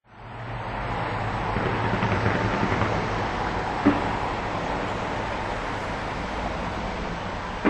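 Small consumer firework spraying sparks with a steady hiss, with a sharp pop about four seconds in and another at the very end.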